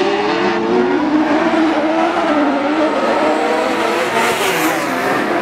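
Several Buggy 1600 class autocross buggies racing on a dirt track, their engines revving up and down over one another.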